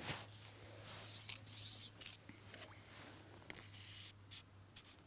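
Fishing pole sections sliding through the hands and back over a pole roller as the pole is shipped out, a series of short rubbing, hissing scrapes.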